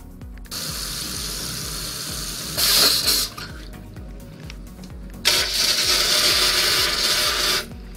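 Water taps turned on and off in a bathroom: water rushing from a washbasin tap, briefly stronger about three seconds in, then after a short lull a louder gush from a shower mixer for about two seconds before it is shut off.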